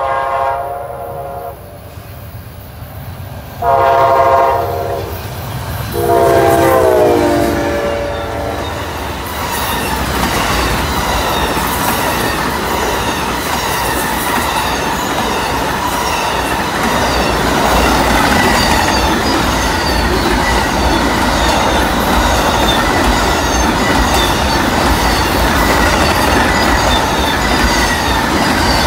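Amtrak Auto Train passing: the locomotive horn sounds three blasts, the third dropping in pitch as the locomotive goes by. Then the steady rumble and wheel clatter of the bilevel passenger cars and autorack cars rolling past.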